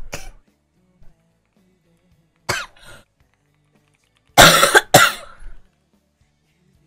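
A girl coughing: a short double cough about two and a half seconds in, then a louder run of two or three harsher coughs about four and a half seconds in.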